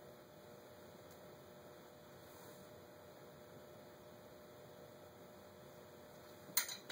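Faint steady electrical hum over low hiss, with one short sharp knock near the end.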